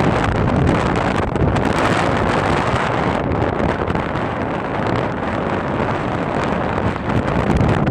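Very loud wind noise from a strong, constant wind blowing over the microphone: a dense noise heaviest in the low end, easing slightly in the middle and picking up again near the end.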